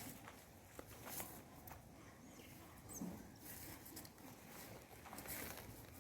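Young bull breathing through its nose while dozing: a few faint, soft hissing breaths, with small clicks and rustles.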